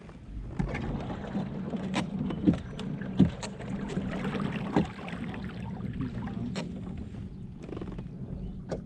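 Pedal kayak moving on the water: water washing and splashing along the hull over a low, steady hum, with about half a dozen sharp knocks scattered through it.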